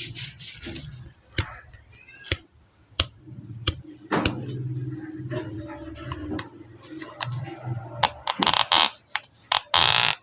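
Close-miked ASMR trigger sounds: a run of sharp taps and clicks on hard objects, with short loud rustling or scraping bursts near the end.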